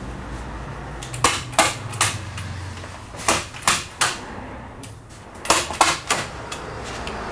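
Hand staple gun firing staples through a film membrane into the wooden roof window frame and battens: a series of sharp snaps, about nine in three quick clusters.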